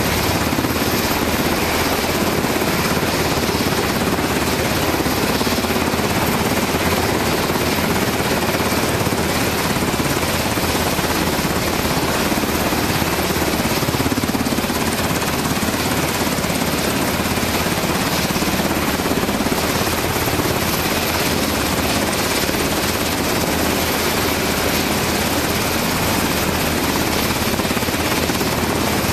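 Sikorsky UH-60 Black Hawk helicopter sitting on a ship's deck with its twin turboshaft engines and main rotor running steadily.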